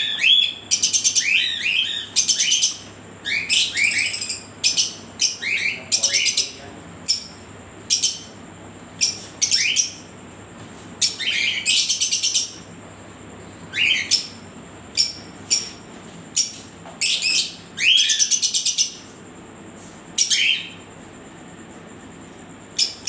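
Caged small pet parrots, lovebirds and cockatiels, calling in short, high-pitched chirps and screeches, many of them falling in pitch, coming in quick runs every second or so.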